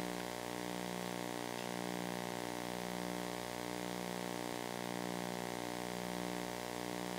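Steady electrical mains hum with a buzzy string of overtones, unchanging throughout.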